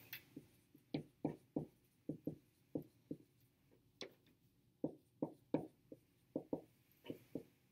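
Dry-erase marker writing on a whiteboard: an irregular string of short taps and strokes, about two or three a second.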